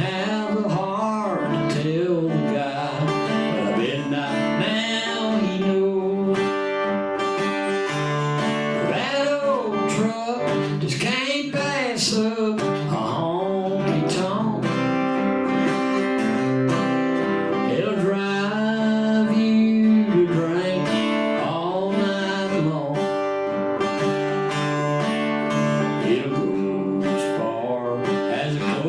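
Live acoustic country song: an acoustic guitar strummed while a singer sings over it.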